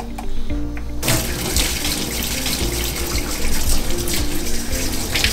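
Tap water running hard into a stainless steel sink and splashing over gloved hands, starting suddenly about a second in and holding steady.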